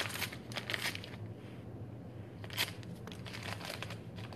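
Paper instant-oatmeal packet being handled and torn open: quick crackly rustling in the first second, a single sharp crackle about two and a half seconds in, and more rustling near the end.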